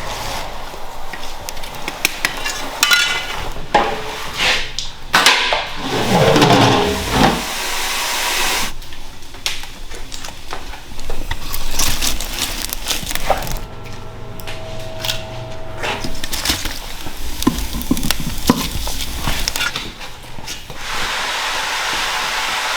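Metal pots and utensils clattering and knocking irregularly. A steady rushing noise starts near the end.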